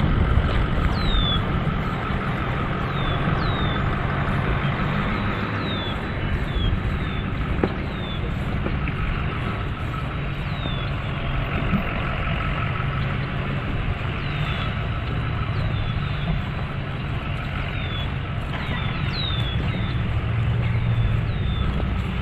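Birds calling in short, high, downward-sliding chirps, repeated every second or so, over a steady low rumble.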